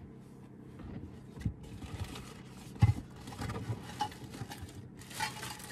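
Handling noises as objects are put down and rummaged for: small knocks and scrapes, with one sharp knock about three seconds in. Steady rustling, like a plastic bag being handled, starts near the end.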